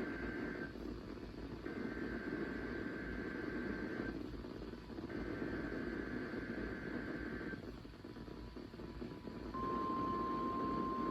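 NOAA Weather Radio alarm test heard through a weather radio receiver over steady static hiss. The tail of one burst of EAS/SAME header data is followed by two more, each about two and a half seconds long and a second apart. After a short pause, the steady 1050 Hz warning alarm tone begins near the end.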